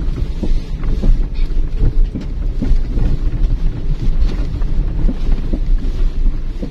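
Car crawling over a rough, stony dirt road, heard from inside the cabin: a loud low rumble from the tyres, with frequent short knocks and jolts as the car rides over the bumps.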